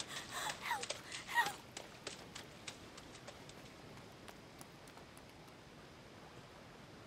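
Cartoon footsteps: light, quick taps that grow fainter as two characters walk away. A few short gliding sounds come in the first second and a half.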